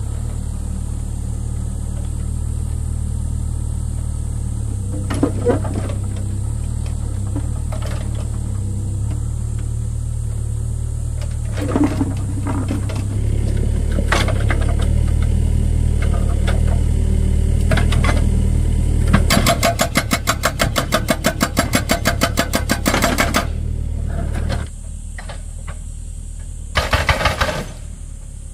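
A motor runs steadily with a low hum, broken by a few sharp knocks. A fast, even rattle lasts about four seconds past the middle, and the sound drops off soon after.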